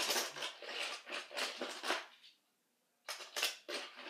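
Toy trains clattering and rattling as they are handled: dense runs of sharp clicks in two spells with a brief silence between.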